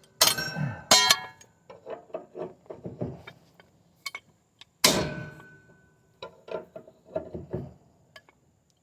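Hammer blows on steel to break loose a seized riding-mower blade nut. Three hard, ringing clangs come at the start, about a second in, and just before five seconds, with lighter metallic taps and clinks in between.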